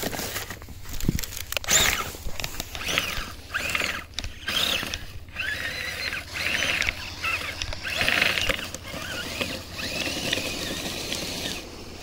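Electric RC snowcat (Kyosho Blizzard EV) driving in stop-start bursts, its motor whining briefly and its tracks clattering and grinding, which the driver takes for something stuck in the track.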